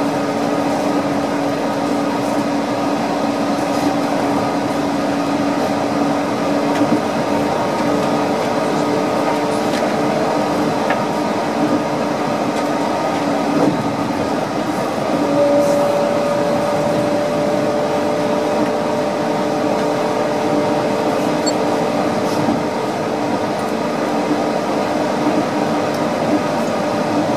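Cabin of a Yurikamome rubber-tyred automated guideway train running on its concrete guideway: steady rolling noise with a low electric whine. About halfway through the low whine stops and a higher whine starts, rising slightly.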